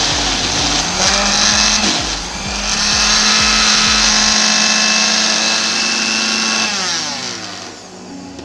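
Small electric blender running under load, pureeing soft fermented cassava and thick coconut milk. The motor dips briefly about two seconds in and picks up again. Near the end it is switched off and winds down with a falling whine.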